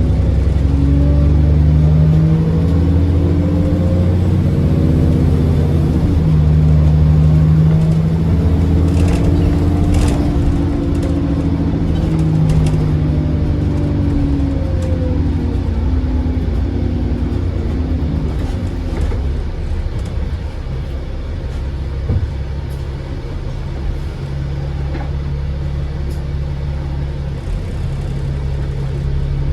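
Service bus's diesel engine pulling hard, its pitch climbing and dropping back several times as it runs up through the gears, with some rattling clicks about ten seconds in. In the second half it settles to a steadier, slightly quieter note.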